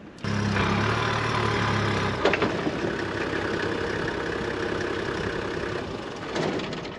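Toyota Land Cruiser HZJ79's six-cylinder diesel engine running with the truck stuck in a riverbed. The sound starts abruptly, with a strong low engine note for about two seconds, then settles into a steady drone that eases off near the end.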